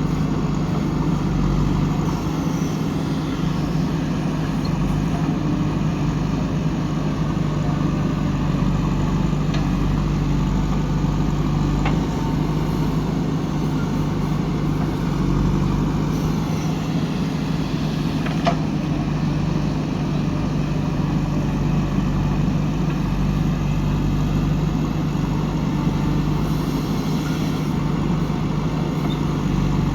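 JCB 3DX backhoe loader's diesel engine running steadily, with a couple of faint brief clicks.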